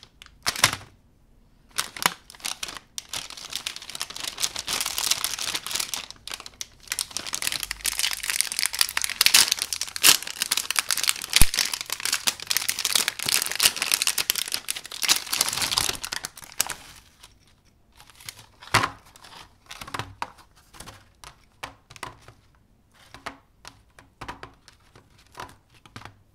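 Plastic snack wrapper crinkling and tearing as it is pulled open by hand, in a dense stretch for most of the first two-thirds. After that come short separate taps and clicks as chocolate wafers are set down on a plastic tray.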